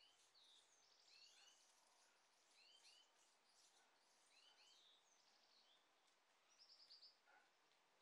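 Faint small birds calling over a low hiss: short curved chirps in twos and threes, repeating about once a second, with a quick rattling run of notes near the end.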